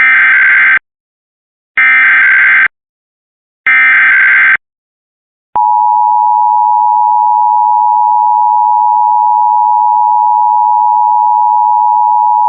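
Emergency Alert System broadcast test signal: three short warbling SAME data-header bursts about two seconds apart, then the steady two-tone EAS attention signal holding for about eight seconds before it cuts off abruptly.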